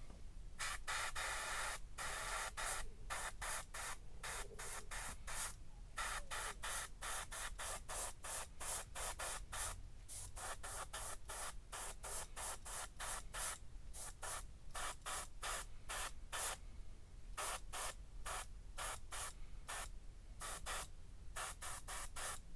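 Paint being sprayed in short hissing bursts, about two a second, with one longer burst near the start.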